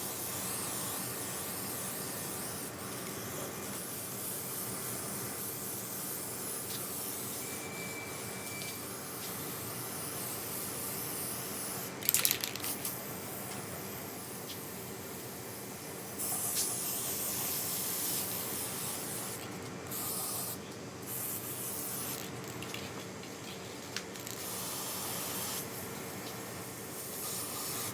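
Steady hissing spray in long bursts with short breaks between them, and a brief louder clatter about twelve seconds in.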